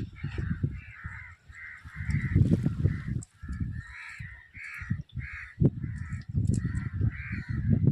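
Crows cawing over and over, about two or three calls a second, over a louder, uneven low rumbling on the microphone.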